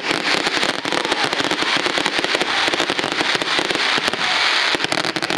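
Aerial fireworks bursting in a rapid, continuous barrage: many bangs and crackles overlapping, several a second, without a break.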